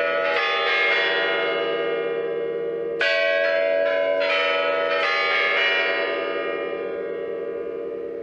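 Kremlin Spasskaya Tower clock chimes ringing in the New Year: a run of bell strokes, each ringing on and slowly fading, with a fresh loud set of strokes about three seconds in.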